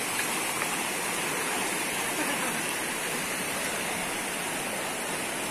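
Steady rush of fast-flowing muddy floodwater.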